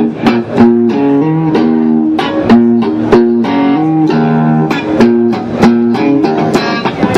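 Electric guitar played through an Avid Eleven Rack amp-and-speaker modeller, strumming a rhythmic run of chords that change about every second.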